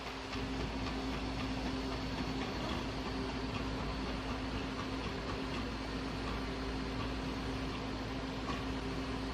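3D printer running: a steady mechanical hum with a held low tone and scattered light ticks, stepping up slightly in level just after the start.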